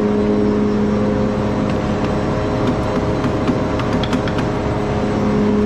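Ore-processing mill machinery running steadily: electric motors, the conveyor drive and the mill give a loud, even hum. Scattered light clicks and ticks come through in the middle.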